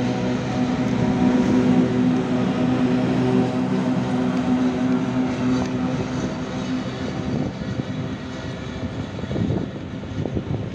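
PKP Cargo ET22 electric freight locomotive passing close by, a steady electric hum over wheel and rail rumble. The hum fades about seven seconds in as the locomotive draws away, leaving rumble and irregular wheel knocks.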